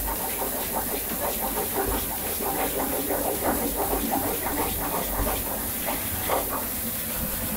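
Penne in tomato sauce sizzling and spattering in a frying pan over a high gas flame, the sauce reducing, with the steady hiss of the burner underneath. A wooden spatula stirs through it.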